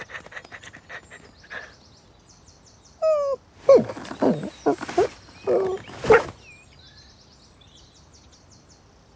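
Cartoon dog's voice-acted vocal sounds: a short falling whine about three seconds in, then a cluster of several loud, short sounds. Light birdsong twitters in the background.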